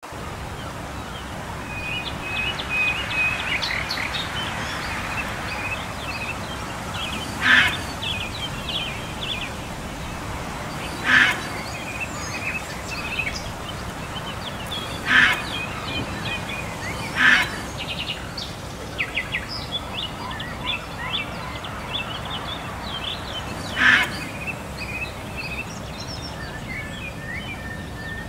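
Wild birds calling outdoors: many quick high chirps and trills over a steady background hiss, with five louder, short calls standing out several seconds apart.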